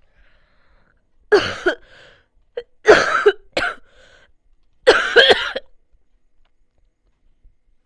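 A person coughing in three bouts over about four seconds, each bout made of two or three coughs.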